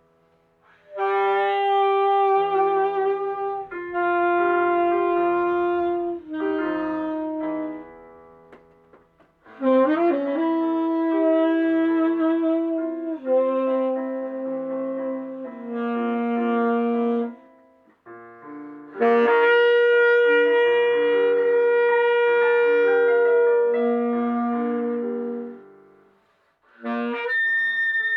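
Free-jazz tenor saxophone playing slow phrases of long held notes, some with vibrato, over sustained piano chords. The phrases break off with short pauses three times and a new phrase starts near the end.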